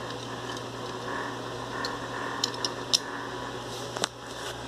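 Small 1:64 diecast model cars being handled and set down, giving a few light clicks and taps, the sharpest near the middle and about four seconds in, over a steady background hum.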